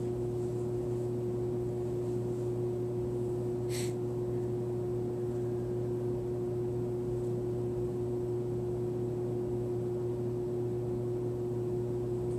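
Steady room hum with a constant low tone under an even hiss, like a ventilation unit running. A brief soft hiss about four seconds in.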